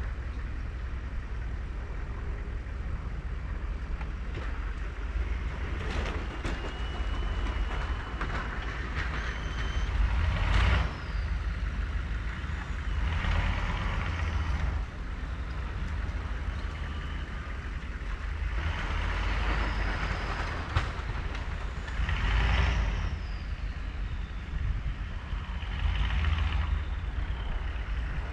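1999 GMC K3500 pickup with a Fisher snow plow, its engine running with a steady low rumble while plowing. Swells of rushing, scraping noise come every few seconds, and there are a few thin high whines.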